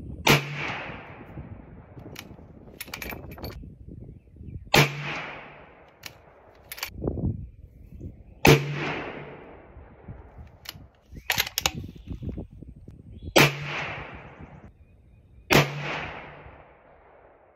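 Five rifle shots from a scoped bolt-action precision rifle, fired 2 to 5 seconds apart, each with a short echoing tail. Smaller metallic clicks between the shots are the bolt being worked to chamber the next round.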